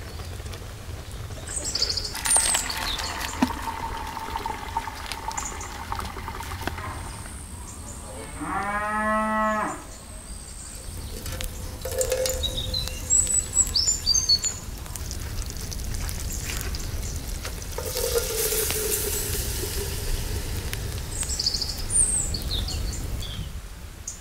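A cow mooing once, one call of about a second and a half near the middle. A few short high chirps come and go around it.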